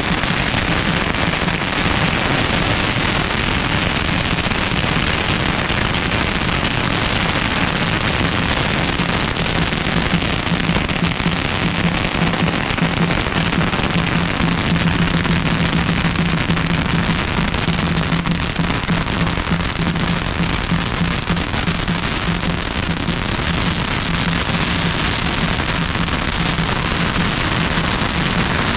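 Firecrackers going off in a dense, continuous crackle that does not let up, with a low steady hum underneath, strongest midway.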